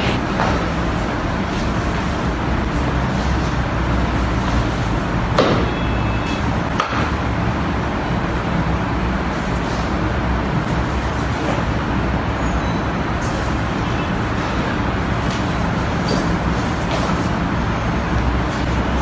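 Steady rumbling background noise, with one sharp knock about five and a half seconds in.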